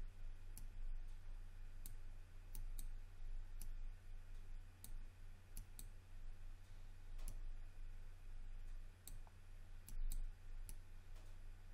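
Irregular single clicks of a computer mouse button as vertices are picked and dragged, over a steady low electrical hum.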